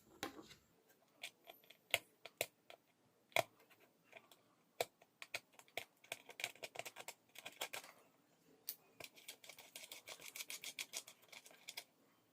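Small screw being worked out of a quartz wall clock's plastic movement with a screwdriver: faint, scattered clicks and scrapes, then a quick run of ticking clicks over the last few seconds.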